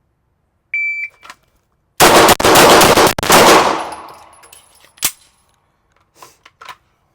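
Shot-timer start beep, then six rapid 9mm shots from a Glock 34 pistol, a bill drill, fired in about 1.3 s with the first shot about 1.3 s after the beep, ringing in an indoor range. One more single gunshot follows about two seconds later.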